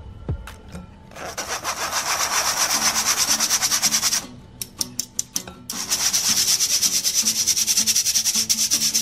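Wire whisk scraping rapidly around a stainless-steel mesh sieve, pushing flour through the mesh. It comes in two bouts of quick, rasping strokes with a short pause of about a second and a half between them.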